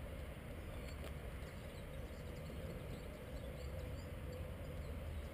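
Faint outdoor ambience: a steady low rumble of distant traffic, with faint high bird chirps here and there.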